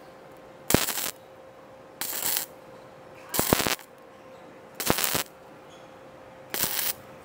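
Tenya MIG 255 welder running gasless flux-core wire (E71T-GS), striking short tack welds on thin steel tubing at about 60 A and 16 V: five brief bursts of arc noise about a second and a half apart, each starting with a sharp click. A faint steady hum runs underneath.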